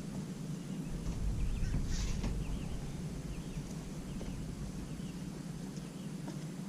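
Birds calling in short, quick chirps over a steady low hum.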